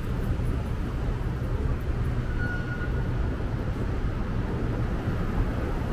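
Steady city street noise with a low rumble of road traffic, and a brief faint high tone about two and a half seconds in.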